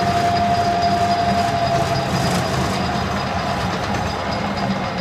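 Metal lathe running with a 1018 steel workpiece spinning in the chuck as a tool chamfers its edge. A thin steady whine sits over the even machine hum and fades out about three seconds in.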